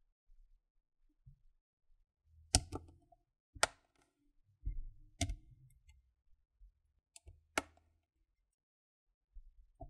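Several sharp, separate clicks as the Acer Switch 3's back cover is worked off by hand, its plastic retaining clips snapping loose one after another along the edge, with faint handling rubs between them. Those clicks are the sign that the cover is coming free.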